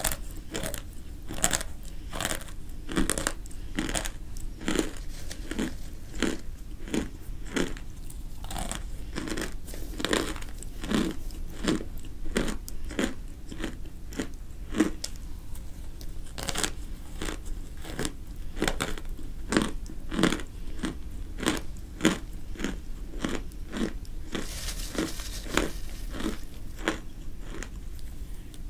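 Chunks of raw cornstarch being bitten and chewed, a steady run of dry crunches at about two a second.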